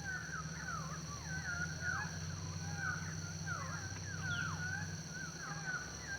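Birds chirping: a dense run of short, quick rising and falling calls, over a steady low hum.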